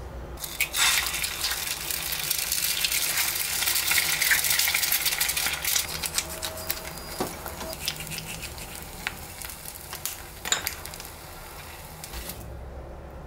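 Two eggs frying in a hot pan: a loud crackling sizzle that starts suddenly, then slowly dies down and stops near the end, with a couple of light knocks along the way.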